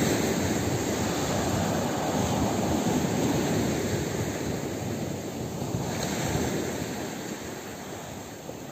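Sea surf breaking and washing up a sandy beach, a steady rush that slowly fades, with some wind on the microphone.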